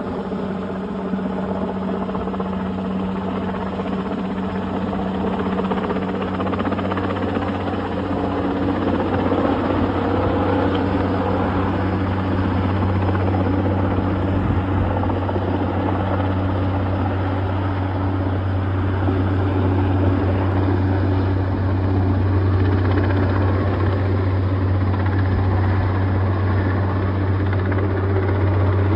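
Sikorsky S-76 helicopter's twin turbine engines and rotors running steadily as it hovers with a sling load on a long line, growing slowly louder.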